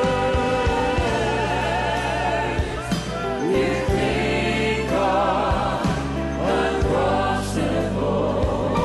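A choir and congregation singing a slow gospel chorus with instrumental accompaniment: long held notes with vibrato over steady low chords.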